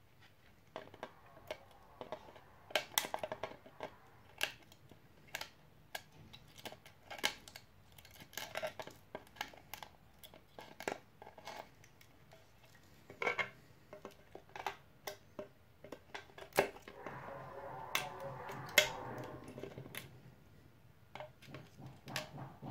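Support material being snapped and clipped off a 3D-printed plastic part with hand cutters: irregular sharp plastic clicks and cracks. There is a busier stretch of crackling and scraping about three-quarters of the way through.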